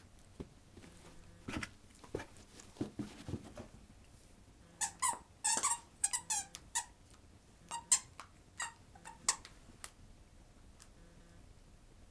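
Corgi chewing a plush starfish squeaky toy: soft chewing and thumps, then a quick run of short, high-pitched squeaks from the toy's squeaker about five seconds in, trailing off about ten seconds in.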